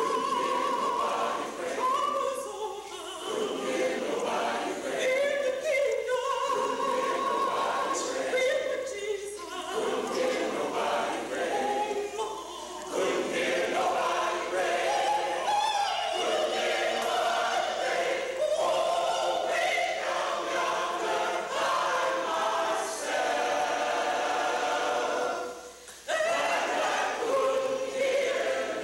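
A choir singing together in long held chords, phrase after phrase, with a brief pause about 26 seconds in.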